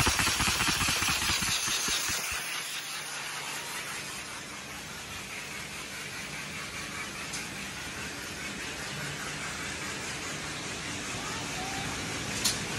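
Folder gluer running: a loud, fast, even clatter from its belts and rollers fades over the first two seconds into a steady mechanical whir with a low hum. A single sharp click comes near the end.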